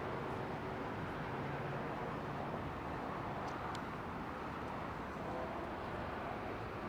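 Steady outdoor background noise with a faint low hum, broken by two light ticks about three and a half seconds in.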